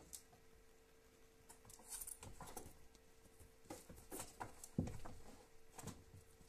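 Faint scattered rustles and clicks as a boa constrictor works its jaws over a rat and shifts against the bedding and rocks, with one louder dull knock near the middle. A faint steady hum runs underneath.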